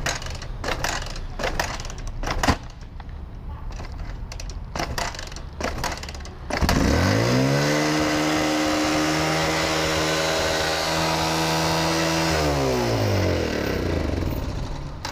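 Yamaha YBR125 motorcycle's single-cylinder four-stroke engine being started: several seconds of irregular knocks and clatter, then about halfway through it catches, rises quickly to a steady high pitch, holds for about five seconds, and winds down and fades near the end.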